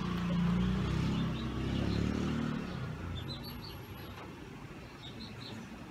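A passing vehicle's engine rumble that fades after about two and a half seconds, followed by two short groups of bird chirps.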